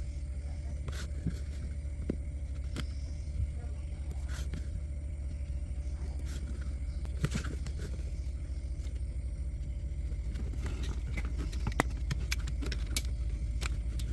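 Boat engine running steadily, low in pitch, with scattered metallic clicks and scrapes that come more often in the last few seconds.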